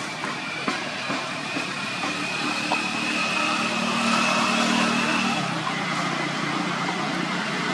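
A motor vehicle's engine running over steady background noise, growing louder over the first few seconds and then holding steady.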